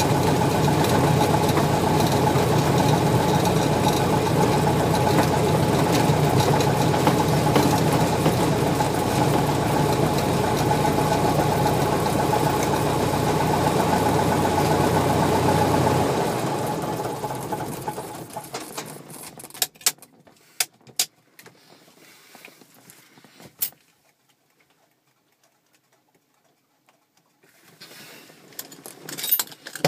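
Light aircraft engine idling steadily, then shut down a little over halfway through, running down over about two seconds. A few sharp clicks follow, then near silence.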